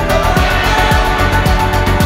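Background music with a steady beat of deep kick-drum hits under sustained synth tones.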